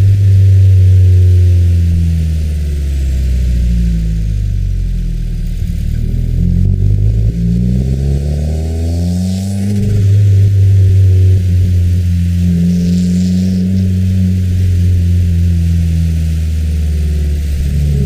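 2015 Subaru WRX's turbocharged 2.0-litre flat-four with a muffler-delete axle-back exhaust, being driven normally. The engine note sinks, then climbs for several seconds and drops sharply about halfway through, as at a gear change, then holds steady while cruising.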